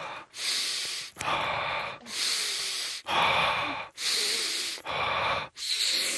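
A man breathing heavily and rhythmically, about one loud breath a second, bracing against the pain of an injection being given just under the skin of his lower back.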